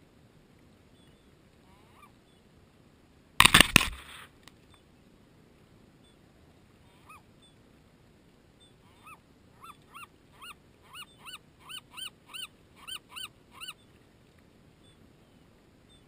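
A gull's long call: a run of about fourteen arched, yelping notes that come faster and grow louder, from about nine seconds in until near fourteen. About three and a half seconds in there is a short burst of loud knocks close to the microphone, the loudest sound here.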